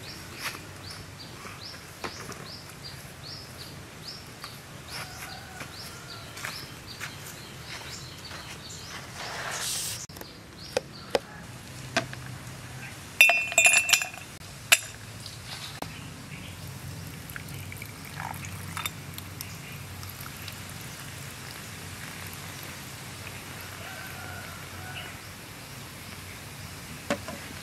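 Ice cubes clinking in a drinking glass, a cluster of bright ringing clinks about halfway through, then Coca-Cola poured over the ice.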